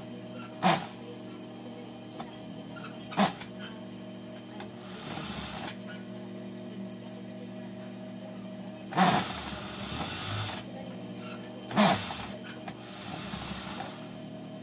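Large piece of white cloth being handled and shaken, rustling, with four short sharp snaps, over a steady hum.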